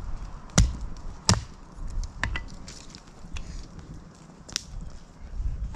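Hatchet splitting kindling: sharp chops of the blade into wood, two hard strikes in the first second and a half, then several lighter chops and taps, and another hard strike at the end.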